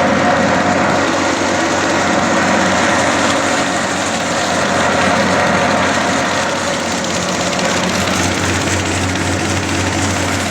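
Red-brick and roof-tile grinding machine running steadily: a loud, even mechanical noise with a steady hum underneath.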